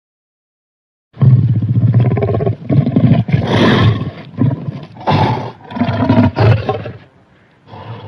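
Dragon roar sound effect: a string of loud, deep, rasping roars and growls starting about a second in, with a brief lull just before the end.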